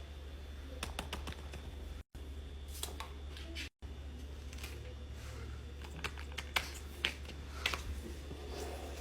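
Scattered light plastic clicks and taps from fidget toys being handled, some in quick clusters, over a steady low hum. The sound drops out briefly twice.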